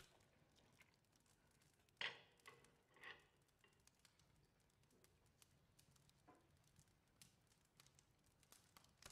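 Near silence: quiet room tone with a few faint, short clicks, the clearest about two seconds in.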